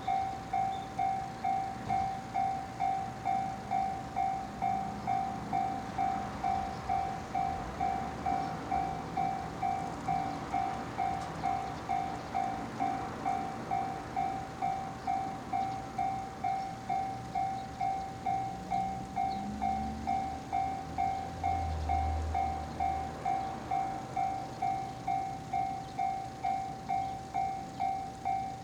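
Japanese level-crossing warning bell ringing its steady "kan-kan" alarm, one bright electronic tone repeated evenly just under twice a second. A faint low rumble comes in about twenty seconds in.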